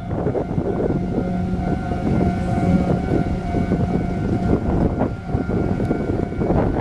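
Level crossing warning alarm sounding steadily while a Taiwan Railways electric multiple-unit commuter train runs through the crossing, its wheels rumbling and clattering on the rails.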